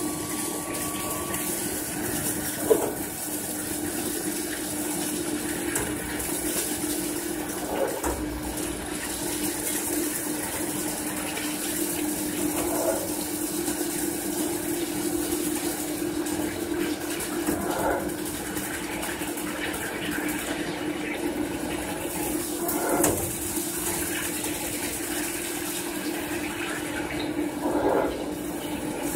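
GZP4080 CNC plate drilling machine cutting a plate under coolant spray: a steady spindle hum with a continuous coolant hiss. A short surge in the cutting noise comes about every five seconds.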